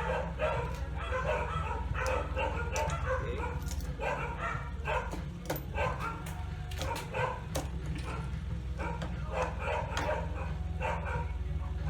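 Repeated short, high-pitched animal cries over a steady low hum, with a few light clicks of small parts being handled.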